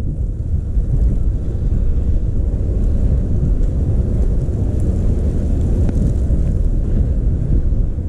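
Storm wind buffeting the microphone, a loud, steady low rumble.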